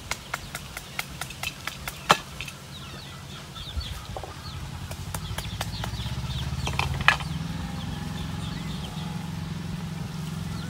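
Chickens clucking with small peeping chirps, among a quick run of sharp clicks at the start and two loud knocks, one about two seconds in and one about seven seconds in. A low steady hum builds from about halfway through.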